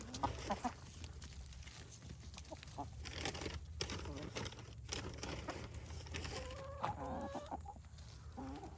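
Domestic hens clucking: a few short repeated notes near the start and a longer drawn-out call about seven seconds in, over a steady low hum.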